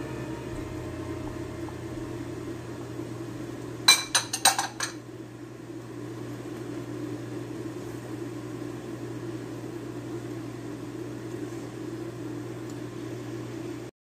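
A steady low kitchen hum, with a quick run of five or six clinks and knocks about four seconds in as a bowl and wooden spoon strike a steel cooking pot while diced potatoes are tipped into the pasta. The sound cuts off suddenly near the end.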